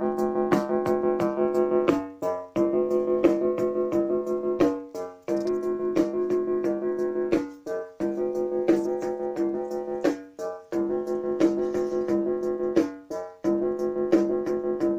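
A Casio Casiotone MT-40 home keyboard playing repeated held chords over steady, regular percussive clicks from its built-in rhythm section, the pattern repeating every few seconds.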